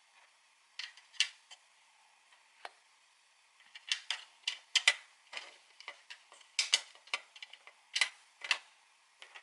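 Small gouache cake pans being set into a palette, their underside magnets clicking on: a string of sharp, irregular clicks and taps, a few at first and coming thick and fast from about four seconds in.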